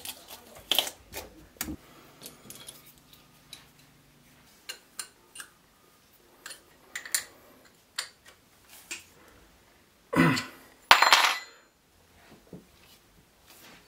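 Scattered light metal clinks and clicks as steel floating-shelf bracket rods are handled and screwed into the wall, with two louder scraping rushes near the end.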